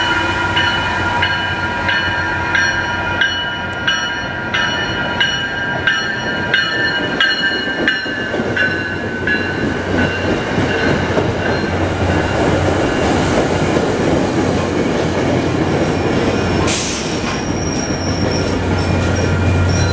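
Commuter rail train with bilevel coaches arriving and slowing along a station platform, wheels and coaches rumbling past. For the first half there are high steady tones with regular ticks about twice a second, and a short sharp hiss comes near the end.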